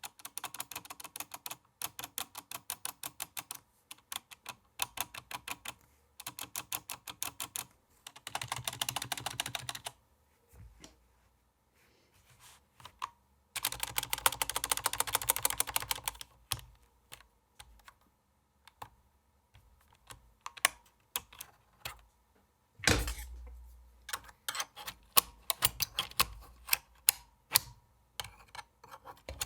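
Typing on a SteelSeries 6Gv2 mechanical keyboard with Cherry MX Black linear switches and ABS keycaps. Fast runs of keystrokes alternate with slower single key presses. One louder, deeper key strike comes about two-thirds of the way through.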